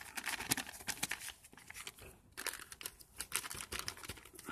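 A small clear plastic bag crinkling in gloved hands as it is squeezed and shaken out over a tub, with quiet, irregular crackles throughout.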